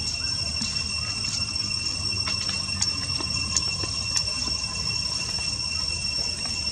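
Insects droning with a steady high-pitched tone over a low background rumble, with a few faint ticks.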